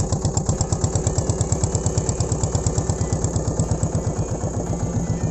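A wooden river boat's engine running steadily under way, a rapid, even put-put of about eight beats a second.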